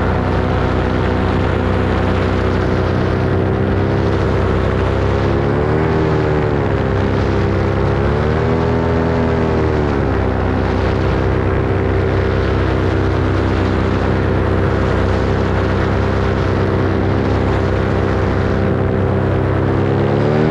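Paramotor engine and propeller running steadily in flight, the pitch wavering twice, about six and nine seconds in, and climbing right at the end.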